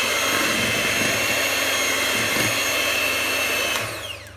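Contempo electric hand mixer running at a steady high whine as its beaters churn thick muffin batter in a stainless steel bowl. About four seconds in, the motor winds down, falling in pitch, and stops.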